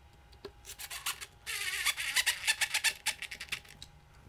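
Cordless drill-driver driving a wood screw through a bridge plate into a guitar body. A few short clicks, then the motor runs for about half a second, followed by a run of rapid clicking that tapers off.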